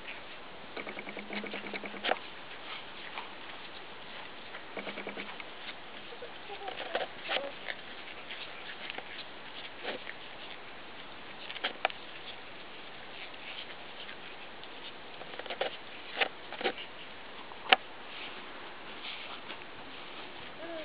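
Scattered light taps and knocks of a toddler's footsteps and a small plastic bucket, over a steady hiss. There is a short buzzing rattle about a second in and again near five seconds, and one sharper click late on.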